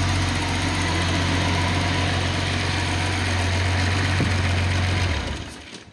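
Datsun 280ZX turbo's inline-six engine idling steadily through a short muffler, then shut off about five seconds in and dying away quickly.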